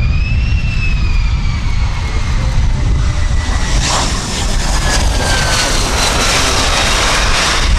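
Single F135 turbofan engine of a Lockheed Martin F-35A passing low over the runway with its gear down on a go-around. A high whine slowly falls in pitch, then from about four seconds in a loud rushing roar takes over as the jet draws level.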